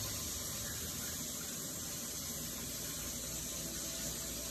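Two slices of kingfish frying in hot oil: a steady sizzle.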